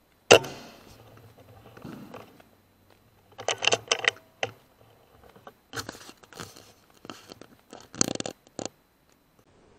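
A sub-12 ft-lb air rifle fires a single shot, a sharp crack just after the start. Scattered bursts of scraping and rustling follow, in clusters a few seconds later.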